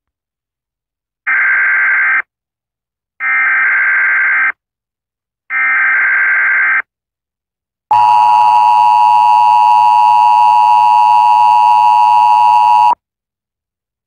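Emergency Alert System activation: three short bursts of warbling SAME header data tones, about a second each, then the EAS attention signal, a steady harsh two-tone alarm held for about five seconds that cuts off suddenly.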